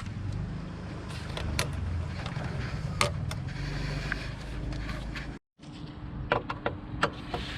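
Scattered sharp metallic clicks and knocks of hand tools on engine bolts, over a low steady rumble. The sound cuts out completely for a moment a little past halfway, and the clicks come closer together after it.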